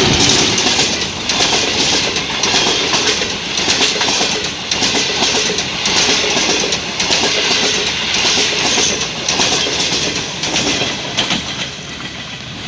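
Passenger coaches of a diesel-hauled train rolling past close by, the wheels clattering rhythmically over the rail joints. The sound eases near the end as the last coach draws away.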